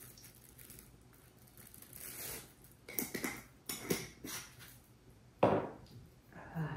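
Plastic bag crinkling and a few light taps and clicks as ground white pepper is shaken from a shaker bottle over a stainless steel bowl of rice, then a louder sharp sound near the end.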